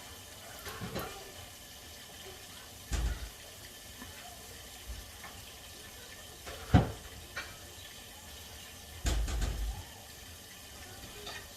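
Pork chop frying in butter and olive oil in a pan, a steady sizzle, with a few knocks, the sharpest about seven seconds in.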